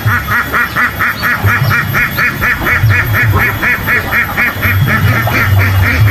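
A flock of white domestic ducks quacking constantly, short calls following one another at about five a second.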